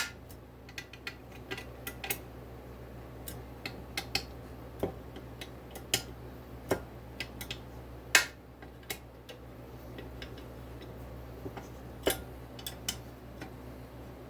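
Irregular sharp metallic clicks and taps from hand tools working on an engine case as its halves are drawn down flush around the crankshaft, over a steady low hum.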